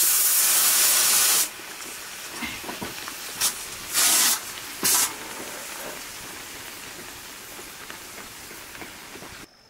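Loud hissing in bursts with sharp starts and stops: one about a second and a half long at the start, then three shorter ones between about three and five seconds in, over a fainter steady hiss.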